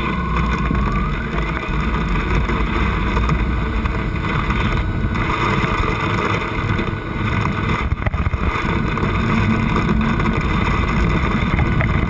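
Car driving along the road, heard from inside the cabin: steady engine and tyre rumble, with a faint whine that rises in pitch in the first second or so.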